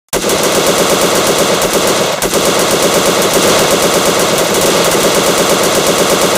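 M1919 Browning machine gun firing a long, unbroken full-auto burst that starts just after the beginning.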